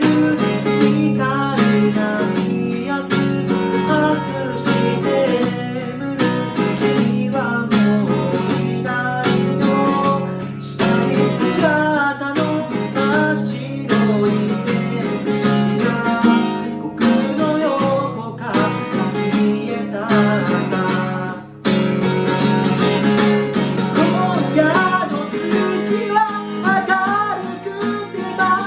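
A person singing while strumming an acoustic guitar.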